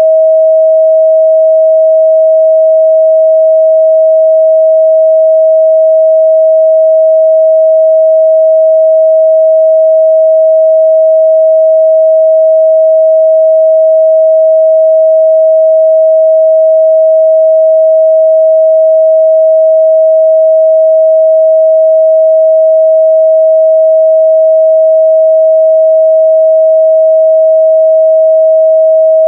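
Steady 638 Hz sine-wave test tone: one pure, unchanging pitch held at a constant loud level, with nothing else heard.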